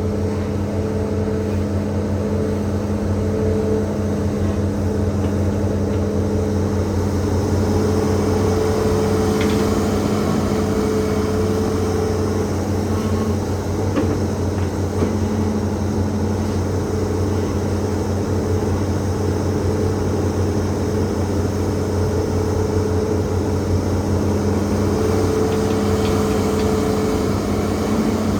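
Hitachi ZAXIS200 hydraulic excavator's diesel engine running steadily with a constant low hum, with a few faint clicks.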